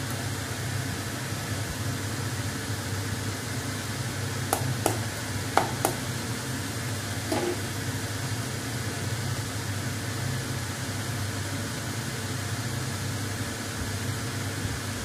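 Slotted steel spoon clinking against a steel pan about five times, starting about four seconds in, while stirring upma, over a steady machine hum.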